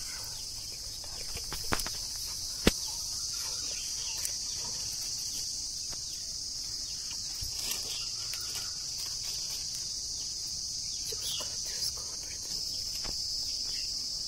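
Insects chirring steadily in a high, unbroken drone, with a single sharp click just under three seconds in.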